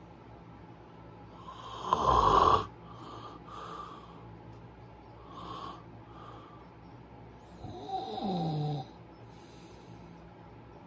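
Snoring: one loud, rough snore about two seconds in, quieter breaths after it, and a second snore around eight seconds in whose pitch drops.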